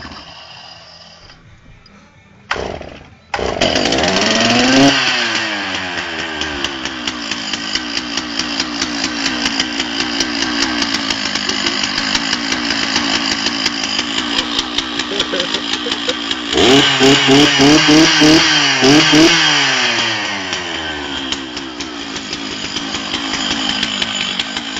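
Two-stroke chainsaw engine starting about three seconds in after two short pulls, revving up and settling into a steady run. About two-thirds of the way through it is blipped to high revs in quick pulses, then eases back down.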